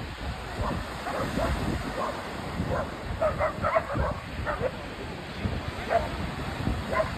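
Dogs barking in short, scattered yaps, with a quick run of barks about halfway through, over a rough background of wind and surf.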